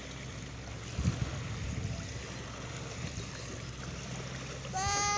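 Steady wash of sea surf and wind on a sandy beach. A brief low thud comes about a second in, and a high-pitched voice calls out with falling pitch near the end.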